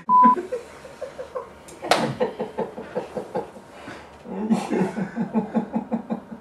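A short censor bleep at about 1 kHz right at the start, then men laughing in two long rhythmic bouts, with a sharp smack about two seconds in.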